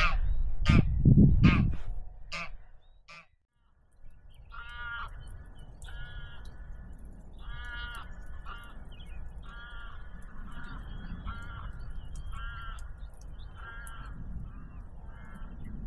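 Wild birds calling: a few harsh calls in the first three seconds, then, after a brief break, a run of about a dozen repeated calls, roughly one a second, over a steady background hiss.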